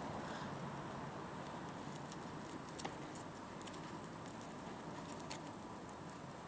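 Faint rustling and scattered small clicks of three-strand rope being handled as its strands are tucked through to splice an eye, over a steady low hiss.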